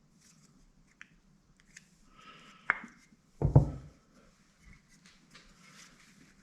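Steel oil pump parts handled on a bench: a few small clicks, then a louder metallic knock about three and a half seconds in.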